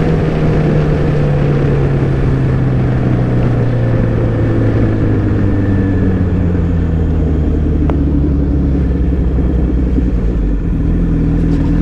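Motorcycle engine running while riding, its revs and pitch falling slowly and steadily for about ten seconds, then holding at a lower note near the end.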